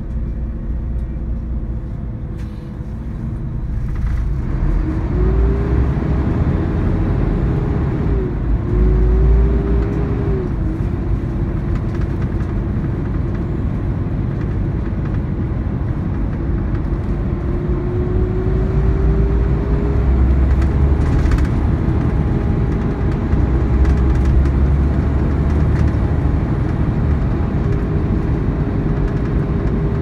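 Volvo B13R tri-axle coach under way: steady engine and road rumble with a whine that climbs in pitch, drops sharply twice around eight and ten seconds in, then rises slowly again and holds.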